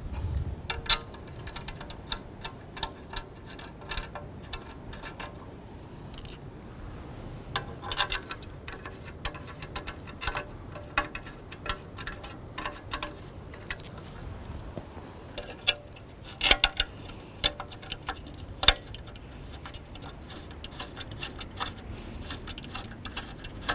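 Irregular small metallic clicks and taps of hand assembly: the feed boom of a satellite antenna being seated on its mount and its wing nuts threaded onto the bolts by hand. A few louder clicks come in short clusters partway through.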